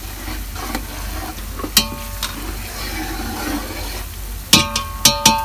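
Sliced onions sizzling in hot oil in a large metal cooking pot while they are stirred with a metal spoon, frying toward light brown. The spoon knocks against the pot, ringing briefly, once about two seconds in and several times in quick succession near the end.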